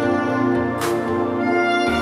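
Soprano saxophone playing a slow, sustained melody over an accompaniment with a low bass line, with a sharp percussive hit a little under a second in.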